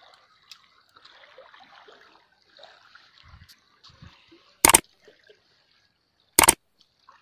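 Faint trickling, lapping water, then two sharp mouse-click sound effects about two seconds apart from a like-and-subscribe button animation; the clicks are by far the loudest sounds.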